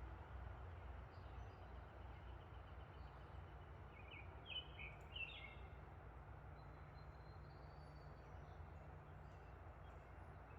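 Near silence: a faint steady low hum, with a few quick faint bird chirps about four to five seconds in.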